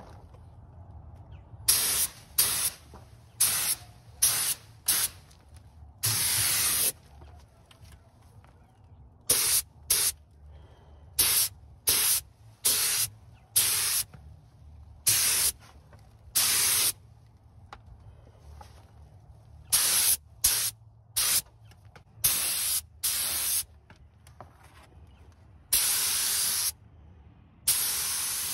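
Compressed-air paint spray gun hissing in short trigger pulls: over twenty bursts, most a fraction of a second long, a few held for about a second.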